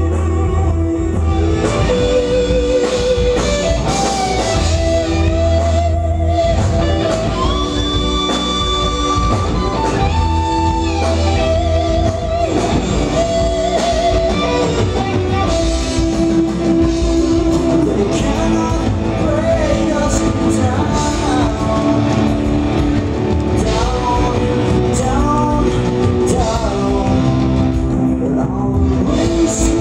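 Progressive rock band playing live: singing over electric guitar, bass and drums, with long held, gliding melody lines.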